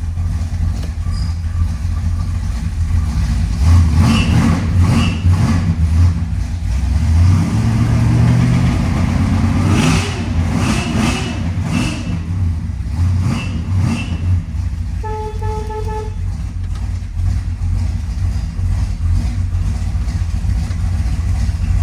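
A 427 big-block V8 idles steadily, revving briefly about eight seconds in. Over it the windshield wipers scrape across the glass and drag, which is put down to the brand-new blades. About fifteen seconds in comes one short horn toot of about a second.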